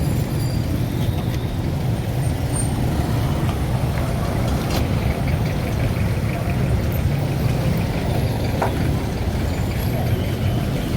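Street traffic: motor vehicles running past as a steady low rumble, with a few faint clicks and knocks over it.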